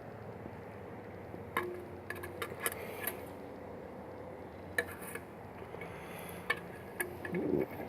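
Scattered light metallic clinks and knocks as automatic-transmission parts are handled and set down, several taps close together about two to three seconds in and a few more later.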